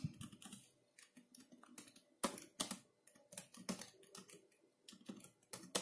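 Typing on a computer keyboard: faint, irregular key clicks, a few a second with short pauses between runs.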